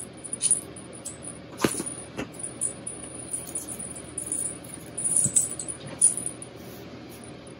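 Small bells on a feather wand toy jingling in quick, irregular shakes as the toy is swung and batted by a kitten. Two sharp thumps come about one and a half and two seconds in.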